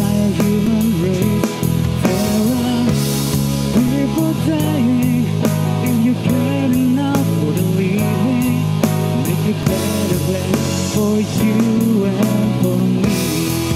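Band music with guitar and a steady drum beat, a melody line weaving over sustained bass notes.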